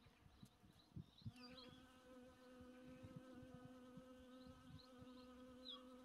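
Faint steady buzz of a honeybee's wings as it hovers and forages among boxwood flowers, starting about a second in.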